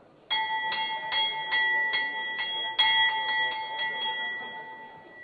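Hanging metal temple bell rung by hand, about a dozen quick strokes over some four seconds, with one harder stroke about halfway. The ringing then fades away.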